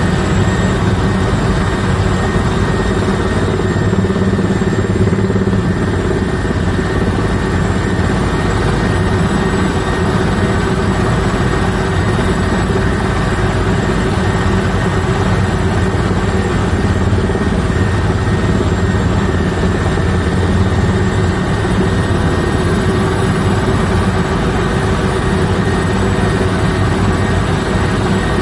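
Helicopter rotor and engine heard from inside the cabin in flight: a loud, steady drone with a thin high whine over it.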